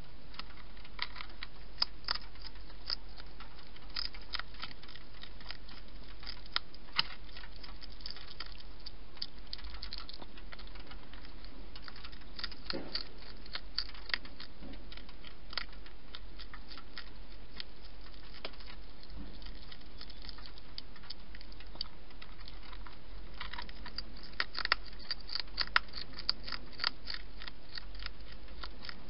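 European hedgehog eating from a dish: scattered sharp clicks and crunches of chewing, coming in bunches and busiest near the end, over a steady background hiss.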